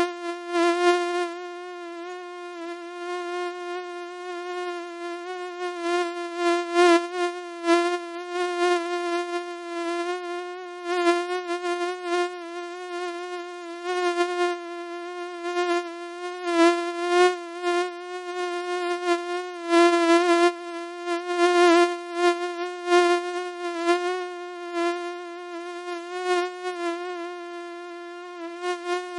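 Mosquito wingbeat whine: a continuous buzzing drone with many overtones, its pitch wavering slightly and its loudness swelling in brief surges every second or two.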